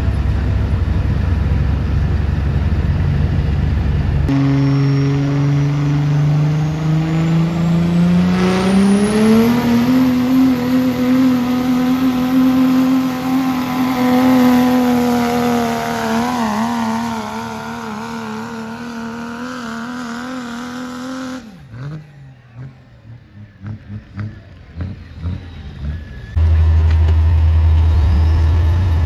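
Diesel pickup truck pulling a sled at full throttle: the engine note climbs in pitch for several seconds, then holds steady with some wavering before dropping away about two-thirds of the way through. A loud deep rumble fills the start and comes back near the end.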